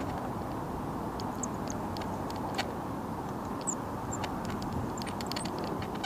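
Steady wind noise on the microphone, with scattered light clicks and a quick run of them near the end from the fishing rod and reel being handled as a fish is hooked.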